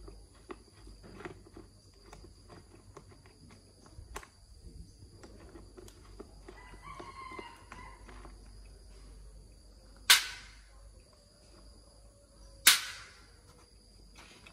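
Scattered small knocks and clicks of work, a rooster crowing briefly about seven seconds in, then two loud sharp knocks about two and a half seconds apart near the end.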